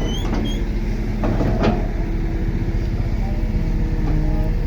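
D31 crawler bulldozer's diesel engine running steadily, with two short clanks about a second and a half in and a brief squeak at the start.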